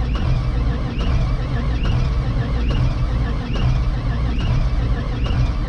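A John Deere tractor's diesel engine turning over hard on a cold start, giving a continuous low rumble with a faint tick repeating about once a second.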